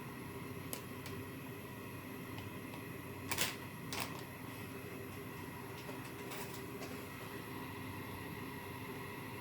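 Kitchen handling sounds: scattered light clicks and two short clatters, about three and a half and four seconds in, over a steady hum.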